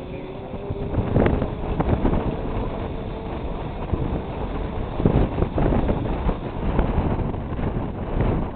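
Wind buffeting the microphone: an uneven low rumble that swells and dips in gusts.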